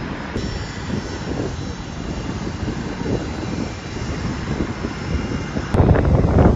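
Aircraft engine running on the tarmac: a steady noise with a faint high whine, with wind on the microphone.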